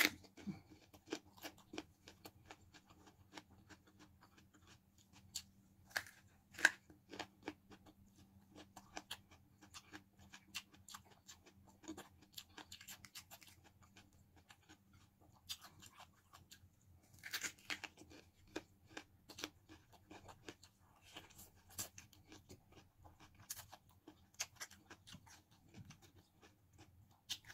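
A person biting and chewing raw green bell pepper with instant noodles: scattered, irregular crisp crunches and small clicks, fairly soft, over a faint steady hum.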